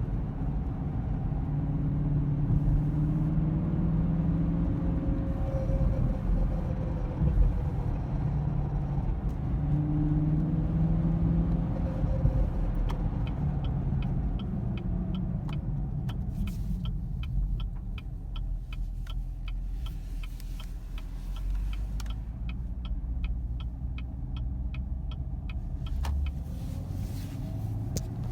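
2016 Camaro SS's 6.2-litre LT1 V8 running with a steady rumble, the engine noise the owner links to a P0300 random-misfire code. From about halfway, a regular light ticking, a few ticks a second, runs over the engine sound.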